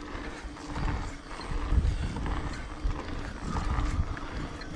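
Wind buffeting the action camera's microphone in irregular low gusts, with the rider breathing hard as he pedals a mountain bike up a steep climb.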